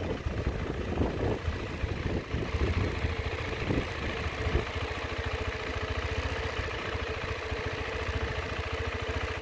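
Motorcycle engine running steadily at low revs, its firing pulses even, then cutting off suddenly at the very end.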